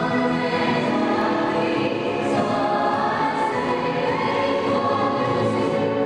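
Choral music playing, several voices holding long notes over a steady accompaniment.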